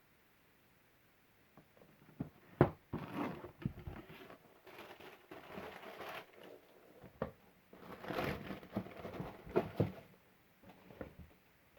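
Running-shoe box being unboxed by hand: paper packaging crinkling and rustling, with sharp clicks and knocks of cardboard being handled.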